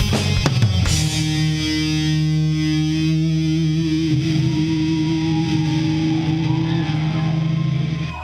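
Live heavy rock band with distorted electric guitars, bass and drums: a few drum hits in the first second, then the band holds a final sustained chord that rings on and cuts off suddenly near the end, ending the song.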